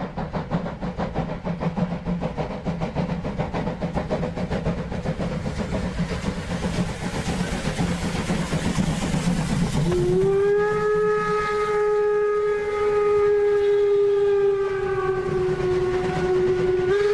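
Train running with a fast, even rhythmic beat, then its whistle sounds one long steady note starting about ten seconds in and holding for about seven seconds, louder than the running train.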